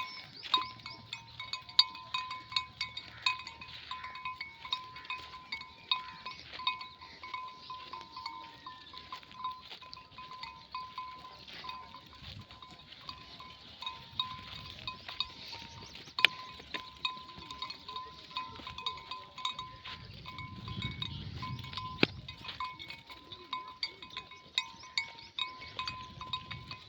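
Flock of sheep grazing, with the bells on their necks clanking and ringing irregularly, and occasional bleating.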